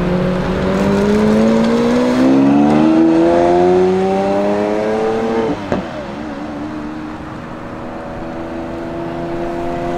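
Lamborghini Aventador's naturally aspirated V12 accelerating, its revs climbing steadily for about five seconds. The revs then drop at an upshift with a short crack, and it pulls away in the next gear at a lower, quieter note that slowly rises again.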